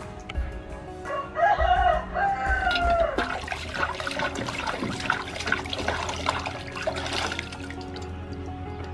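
A rooster crows once, a long call starting about a second and a half in. Water then splashes and sloshes in a metal basin as a pumpkin is scrubbed and rinsed by hand, over background music with a steady low beat.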